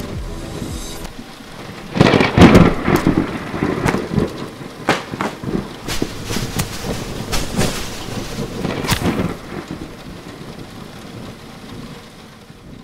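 Thunderstorm: a loud thunderclap about two seconds in that rumbles and crackles for several seconds over steady rain, then dies down and fades out near the end.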